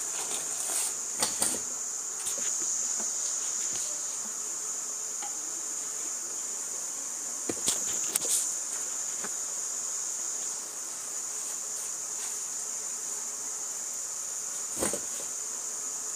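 Metal cooking pots and lids clinking and knocking a few times as they are moved about on the cooker, over a steady high-pitched whine.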